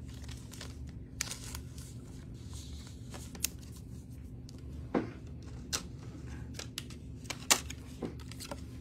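Trading cards and rigid plastic top loaders being handled on a table: scattered light clicks and short rustles, over a low steady hum.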